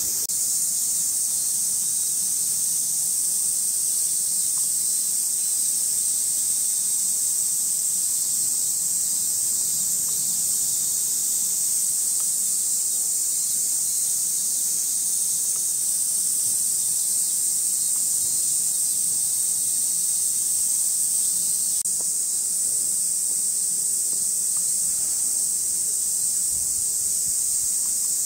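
Cicadas calling in a steady chorus: one continuous high hiss that holds unchanged throughout.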